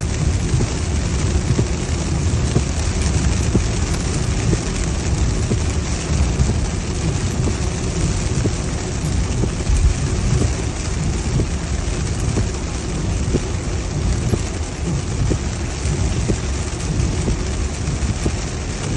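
Heavy rain pouring in a storm with strong wind, the low rumble of gusts buffeting the microphone running under a dense patter of drops.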